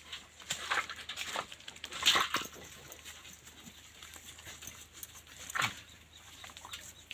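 A dog giving a string of short whines and yelps during a bath, the loudest about two seconds in and another near the end.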